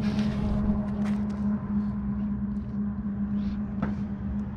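Steady mechanical hum holding one low pitch, with a light click or tap about a second in and another near the end.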